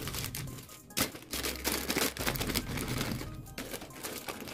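Clear plastic zip-lock bag crinkling and rustling as it is handled and pulled open, with a sharp click about a second in, over soft background music.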